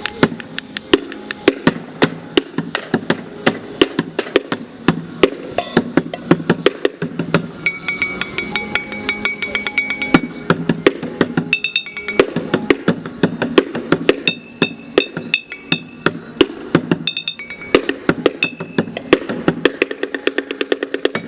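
A street drummer striking bottles in a fast, dense rhythm: rapid sharp hits, some leaving short ringing tones.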